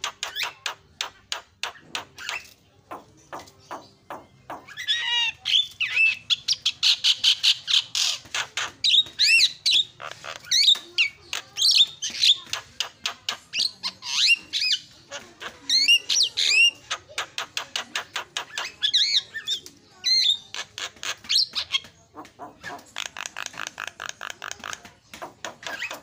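Javan myna (jalak kebo) singing: fast, chattering runs of sharp repeated notes mixed with wavering, gliding whistles, broken by a few short lulls.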